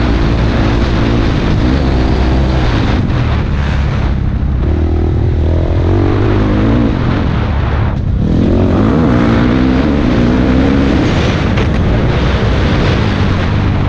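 Dirt bike engine revving up and down as the rider accelerates, shifts and backs off along a rough trail. There is a brief drop in the sound about eight seconds in.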